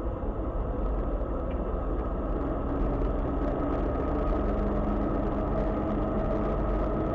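Steady engine drone and road noise of a vehicle driving at an even cruising speed, heard from on board.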